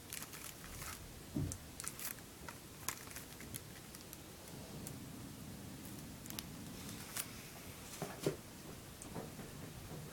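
Shrink-wrapped CD cases handled in a cardboard box: irregular quiet crinkling of the cellophane wrap, with small plastic clicks and cardboard rustles. The crackles come thickly in the first few seconds, thin out, and a sharper click comes near the end.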